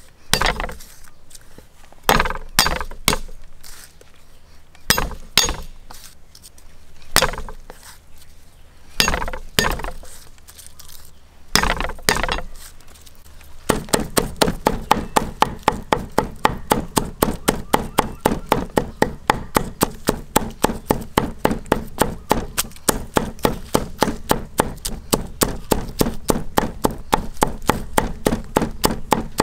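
A knife knocking on a thick wooden chopping block as garlic cloves are cut, at first single sharp knocks a second or two apart. About halfway through it turns into rapid, even chopping, about four or five strokes a second, as the garlic is minced.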